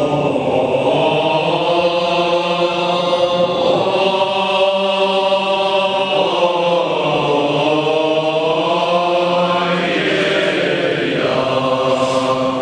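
Men's choir chanting an Eastern Orthodox liturgical hymn in a slow melody of long held notes, several voices singing together.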